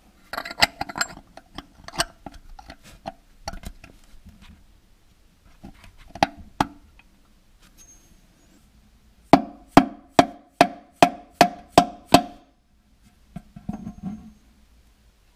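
A domed steel cap being fitted over the pinion-shaft nut in a tractor transmission case. First come scattered clicks and light knocks as it is handled into its bore. About nine seconds in, a run of about nine evenly spaced, ringing knocks follows, roughly three a second, as it is tapped home to seat.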